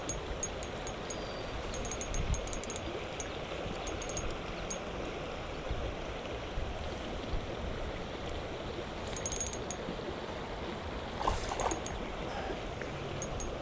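Creek water rushing steadily over riffles, with a few short bursts of fast, high-pitched clicking and a couple of brief low thumps.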